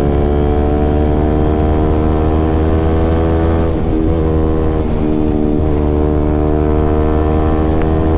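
KTM RC 200's single-cylinder four-stroke engine running through an aftermarket SC Project exhaust while riding. The exhaust note is loud and climbs slowly in pitch for about three and a half seconds, breaks briefly about four seconds in, then holds steady.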